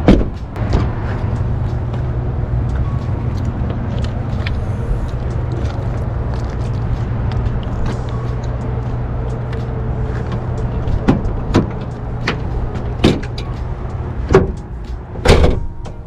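Pickup truck door opening with a sharp click, over a steady low rumble. A series of sharp knocks and thuds follows from about eleven seconds in as things are handled around the truck.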